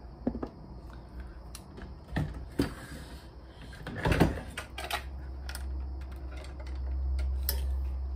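Handling noise: scattered clicks and knocks as a corded handheld microphone and its cable are moved about, with one louder knock about four seconds in. A low rumble builds from about halfway through.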